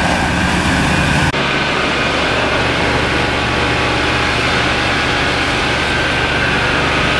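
Fire engine running steadily to drive its pump, with the rush of a hose water jet. The sound changes abruptly about a second in.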